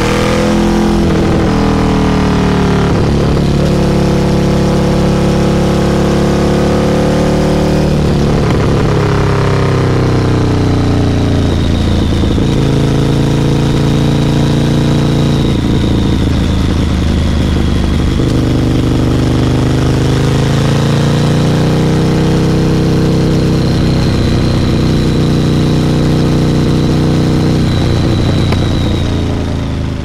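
Ducati Monster 1100 EVO's air-cooled L-twin engine running through a Competition Werkes slip-on exhaust while riding. The engine note climbs steadily under throttle and drops sharply several times, then eases off near the end.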